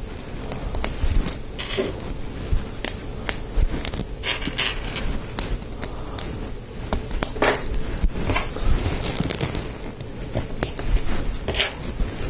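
Hard plastic LEGO Technic parts clicking and clattering in the hands as pins are pushed into a liftarm, with irregular sharp clicks and short rustles of handling.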